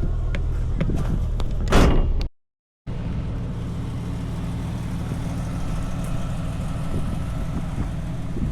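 Off-road vehicle engine running steadily at low speed on a trail. About two seconds in there is one brief loud noise, and the sound then cuts out completely for about half a second before the engine sound resumes.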